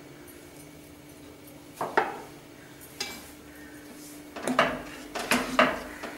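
A spoon knocking and scraping against a pan while thick mushroom kurma gravy is stirred. There are two knocks about two and three seconds in, then a quick run of clinks near the end.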